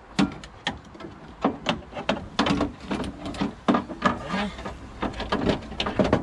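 Irregular clicks, knocks and rattles of a replacement window regulator, its cables and plastic sliders, knocking against the bare inner door shell as it is worked into place through the door openings.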